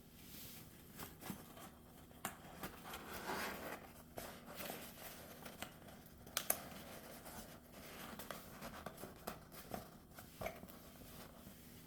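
Faint small handling sounds: irregular light clicks, taps and scratchy rustling, with one sharper tick about six and a half seconds in and no ringing tone.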